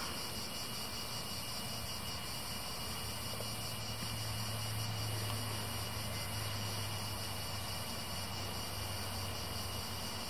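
Steady low engine hum from far off, swelling slightly in the middle, under a faint even hiss.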